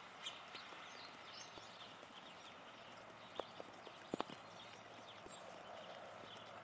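Steller's jay pecking at the food in a hanging wire-basket feeder: a few sharp taps of its beak a little past the middle, the loudest a quick cluster of three about four seconds in, over a faint steady hiss.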